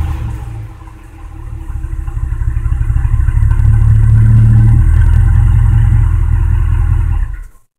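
Ford F-250 pickup's exhaust, close at the tailpipe: the revs fall away in the first second, then the engine is revved up again and held for several seconds before the sound cuts off abruptly near the end.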